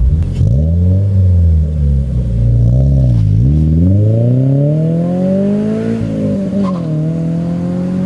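2022 Subaru BRZ's 2.4-litre flat-four through an HKS Spec L exhaust, accelerating hard away and fading down the road. The engine pitch climbs and drops with the gear changes, with a long pull in the middle and a shift about six seconds in. It has a muffled tone, like talking with a mask on, which the owner thinks may come from too much muffling in an exhaust built for the first-generation car's smaller piping.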